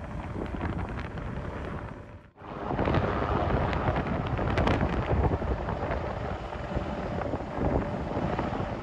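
Jet aircraft engine noise mixed with wind buffeting the microphone. The sound drops out abruptly a little over two seconds in, then comes back louder and stays steady.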